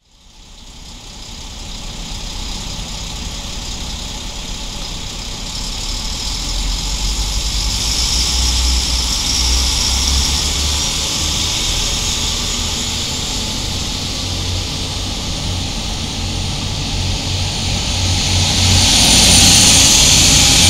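Diesel engines of a Bayerische Oberlandbahn Integral diesel multiple unit running as the train starts to pull out: a steady low rumble under a broad hiss, growing louder about halfway through and loudest near the end.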